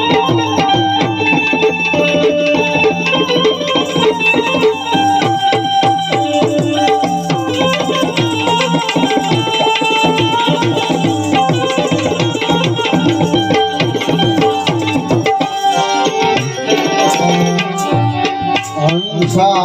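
Instrumental interlude of Gujarati devotional bhajan music, with tabla playing a steady rhythm under a sustained melodic instrument line.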